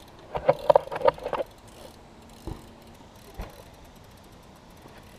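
BMX bike being ridden: a burst of rattling clicks from about half a second to a second and a half in, then two single dull knocks a little under a second apart.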